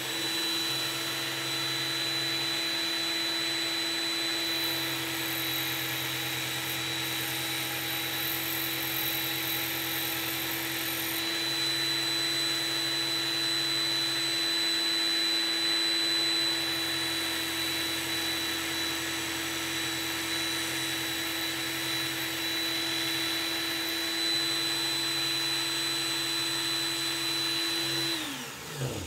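Work Sharp Ken Onion Edition electric belt sharpener running loud and steady with a high motor whine, its abrasive belt grinding the single-bevel blade of a pair of pruning shears. Near the end the motor is switched off and winds down, its pitch falling.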